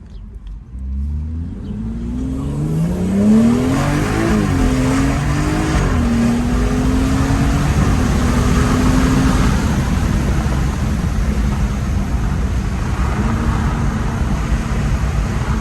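High-horsepower BMW accelerating hard, its engine pitch climbing and dropping back at two quick upshifts in the first six seconds, then holding a steady drone with road noise at speed.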